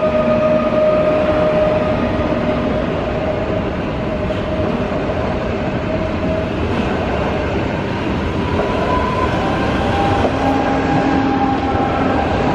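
Long PKP Intercity passenger train of coaches passing close by, a steady loud rumble of wheels on rail. A steady tone sounds over the rumble and fades out about halfway through, and other tones come in near the end.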